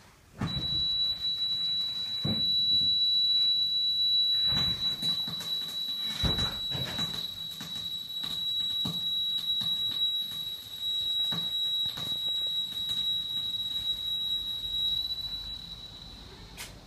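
A single steady high-pitched electronic tone, starting about half a second in and held until near the end, over scattered knocks and clicks.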